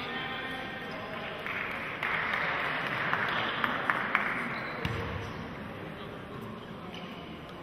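Basketball bouncing a few times on a hardwood gym floor, with a low thud near the end of the run of knocks, over a murmur of voices in a large, echoing sports hall.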